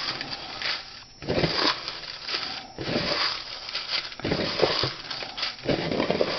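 Paper slips rustling and crinkling as a hand stirs them around in a plastic bucket, in irregular bursts with brief pauses.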